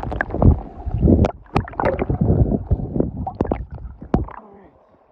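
Water splashing and sloshing right at the microphone in irregular surges, with sharp knocks and clicks mixed in, stopping suddenly about four and a half seconds in.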